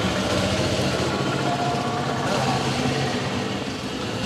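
A motor vehicle engine running steadily at idle, amid street traffic noise.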